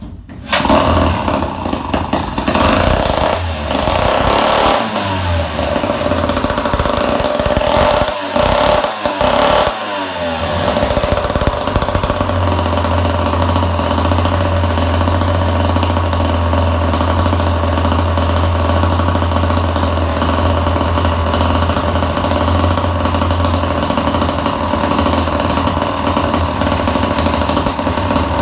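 Two-stroke chainsaw engine started and running, with its throttle rising and falling a few times in the first ten seconds or so. It then settles into a steady fast run on the set throttle.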